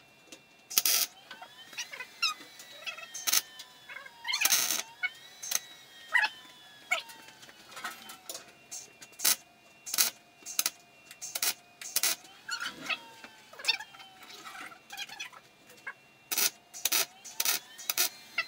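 MIG welding arc crackling in a string of short bursts: tack welds on sheet steel, each a brief sputtering crackle with short gaps between.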